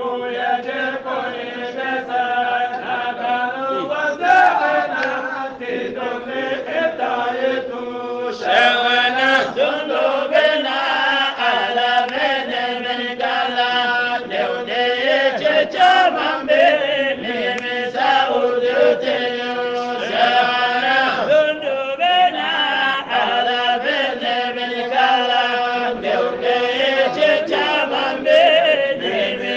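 Voices chanting an Islamic devotional kassida (qasida), a sung religious poem, in a continuous melodic chant over a steady drone note.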